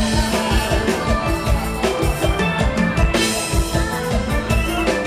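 Live mor lam band music, with a steady drum beat.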